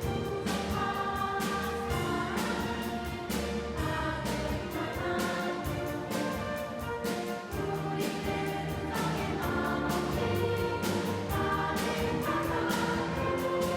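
Children's choir singing with orchestral accompaniment.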